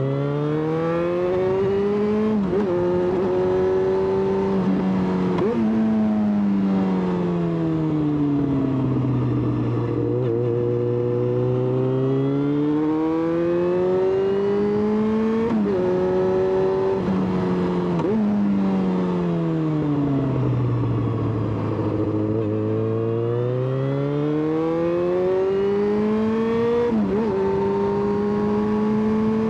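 Yamaha XJ6's 600 cc inline-four engine under way: the revs climb in short pulls broken by quick upshifts, then fall away in a long smooth slowdown, twice over.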